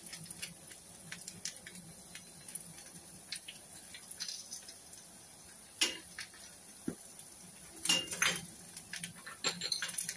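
Potato strips frying in oil in a metal pan: a faint steady sizzle with scattered crackles, and a couple of louder clicks about six and eight seconds in.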